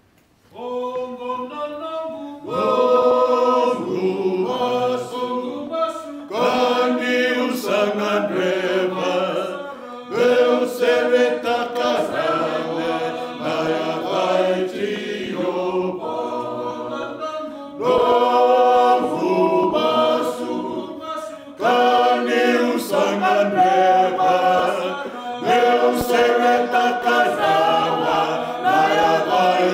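Men's choir singing a Fijian hymn a cappella, several voices at once, in phrases of about four seconds. It starts softly and the full group comes in about two seconds in.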